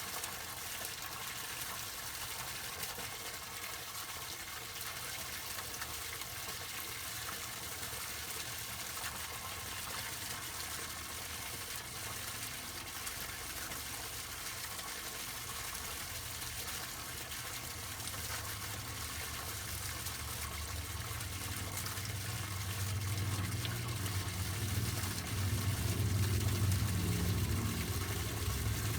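Water of a garden waterfall fountain falling and splashing steadily. A low rumble builds up in the last third.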